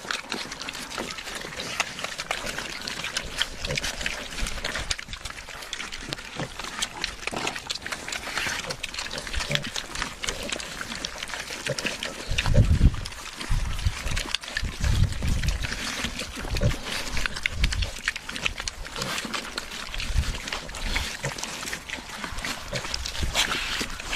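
Pigs feeding at a trough: constant wet chewing, smacking and slurping, with a run of low grunts in the middle.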